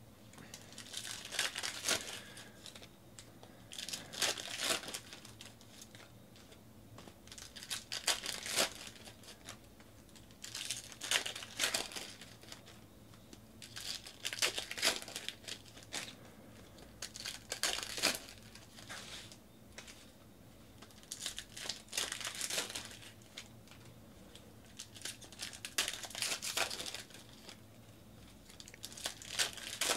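Wrappers of 2019/20 Panini NBA Hoops trading-card packs being torn open and crinkled by hand, in repeated crackly bursts about every three to four seconds.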